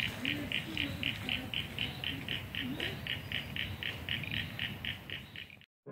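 A high, even pulsing call from a creature in the bush, about four pulses a second, over a low rumble. It cuts off suddenly near the end.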